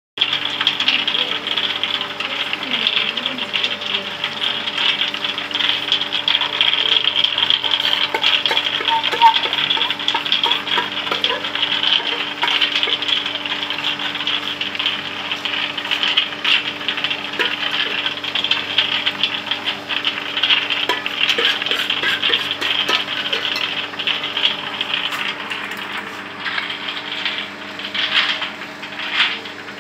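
Chilli-coated cashews tumbling in a rotating stainless-steel coating pan: a steady, dense rattle of nuts sliding and clicking against the metal, over the steady hum of the pan's electric motor. Near the end a hand stirs through the nuts, adding sharper scraping clatters.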